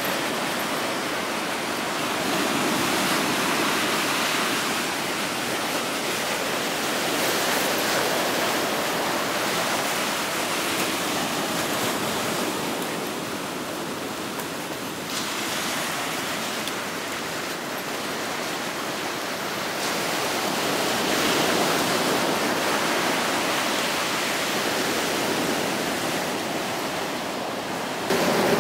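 Ocean surf breaking and washing up the beach: a steady rushing that swells and eases slowly.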